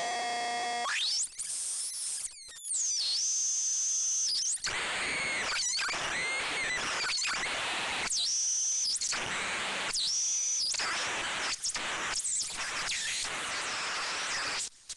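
Homemade CMOS noise synthesizer, four 4093 Schmitt-trigger oscillators mixed through a 4070 XOR gate, being played by turning its knobs. A buzzy tone for the first second gives way to a rising sweep, then squealing high whistles swoop up and down over harsh noise, broken by several brief dropouts.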